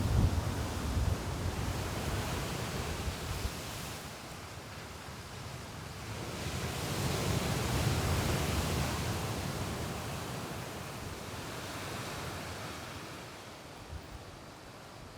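Sea surf rolling onto the beach in a strong wind, with gusts buffeting the microphone at the start; a wave swells up about halfway through and slowly dies away.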